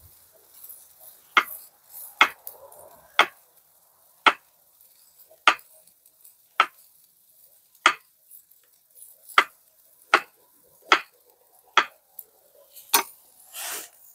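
Knife chopping on a cutting board: about a dozen sharp, separate knocks, roughly one a second.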